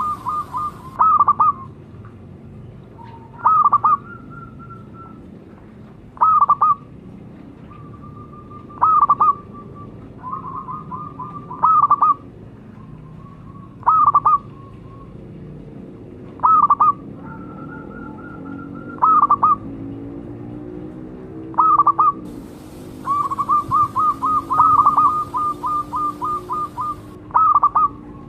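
Zebra dove (perkutut) calls: a loud, clipped cluster of notes about every two and a half seconds, with softer drawn-out coos between them. Near the end comes a quick run of short staccato cooing notes.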